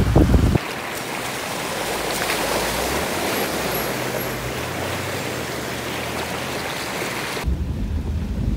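Rushing, splashing water as a Subaru Outback fords a shallow, muddy river: a steady even hiss of flowing water with a faint low hum underneath. It starts abruptly about half a second in, after a moment of wind and road rumble from the moving car, and gives way near the end to a low driving rumble.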